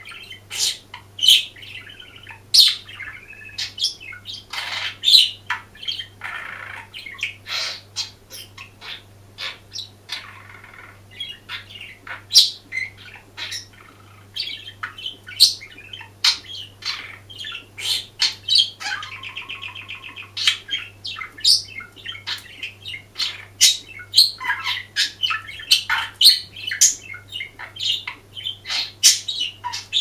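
Budgerigar warbling: a continuous run of quick chirps, squeaks and clicks, broken twice by longer buzzy, rattling phrases. A faint steady low hum runs underneath.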